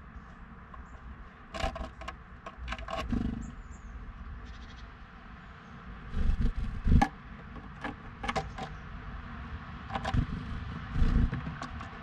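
Irregular taps, scratches and knocks on wood, with a few heavier thumps about six to seven seconds in and again near the end: a blue tit landing, hopping and pecking at food on a wooden birdhouse feeder.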